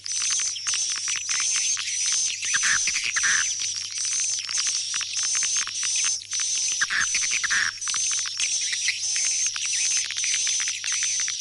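Recorded swiftlet calls: dense, rapid twittering chirps with a high repeated whistle pulsing about twice a second. This is a lure track played to call swiftlets back to a swiftlet house.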